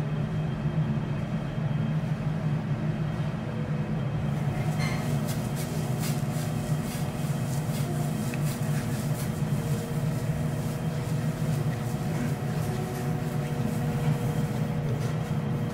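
Steady low hum of a ventilation fan, with faint light clicks of cutlery on a porcelain plate from about five seconds in.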